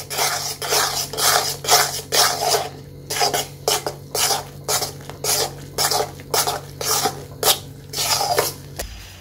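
Flat spatula scraping and stirring against a metal pan, about three quick strokes a second, as pearl millet flour is worked into boiling salted water to cook into a dough.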